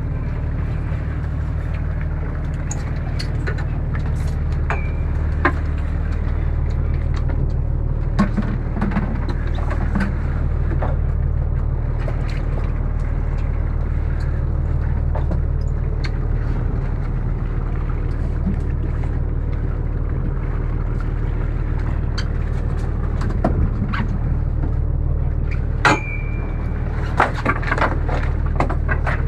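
A fishing boat's engine running with a steady low hum. Scattered sharp knocks and clicks on deck break over it, the loudest about three seconds before the end, with several more close together near the end.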